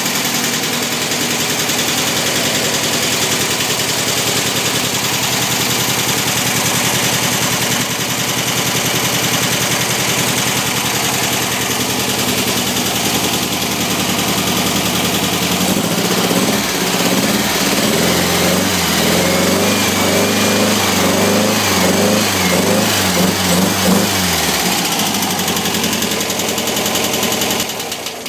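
Freshly built 2028cc VW Type 2 air-cooled flat-four engine running on its first start. It runs steadily at first, then its speed rises and falls repeatedly in the second half, and it stops abruptly near the end.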